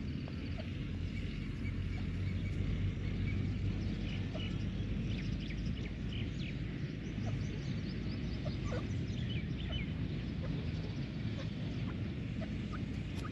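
Birds giving many short, high chirps, scattered and thickest in the middle, over a steady low rumble.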